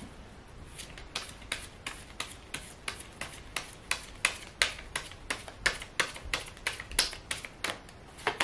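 Deck of tarot cards being shuffled by hand: a steady run of short, crisp card slaps, about three a second, starting about a second in.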